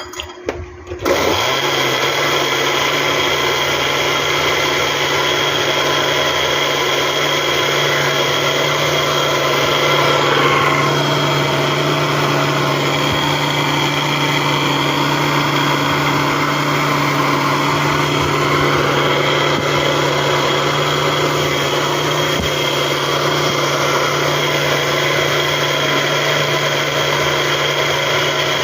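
Electric blender blending carrots for juice: the motor starts about a second in and then runs steadily at a constant speed.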